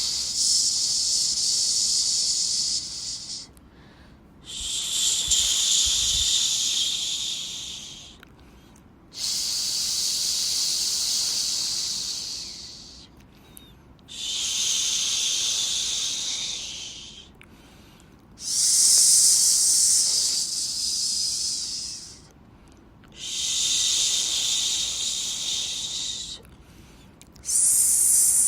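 Rhythmic 'shhh' shushing for soothing a baby: a long high hiss of three to four seconds, repeated about every four and a half seconds with brief pauses between.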